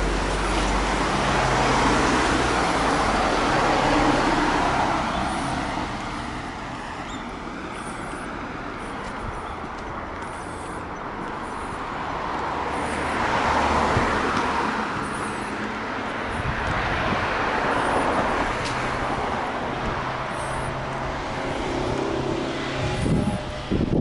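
Road traffic noise from cars passing on a suburban street, the tyre and engine noise swelling and fading away several times.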